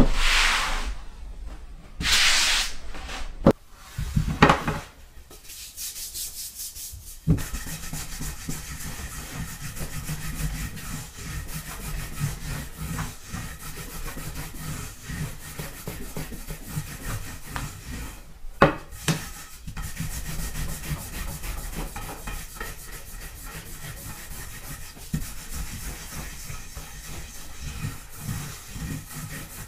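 A long wooden rolling pin rolls back and forth over a thin sheet of buckwheat dough on a wooden board, a steady rubbing rumble. There are three louder swishing strokes in the first few seconds and one more a little past the middle.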